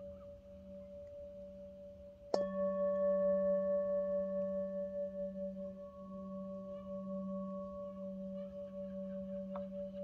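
Hand-held metal singing bowl ringing with a steady low tone and a higher tone that waver as they sustain; it is struck once with a mallet about two seconds in, bringing out higher overtones that ring on. A light tap near the end.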